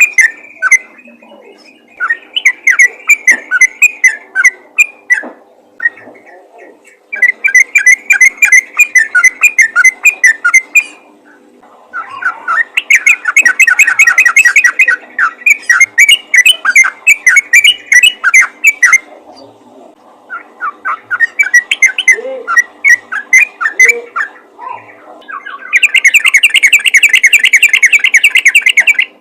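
Yellow-vented bulbul (trucukan) singing its rapid, chattering 'ropel' song. It comes in fast runs of bubbly notes a few seconds long, with short pauses between them, and the loudest and densest run comes near the end. This is a lively call used to draw other bulbuls in.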